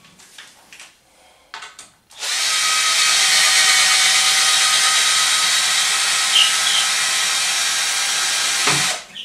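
Handheld power drill running steadily for about seven seconds, boring into a wooden batten; it starts about two seconds in and stops abruptly near the end. A few light handling knocks come before it.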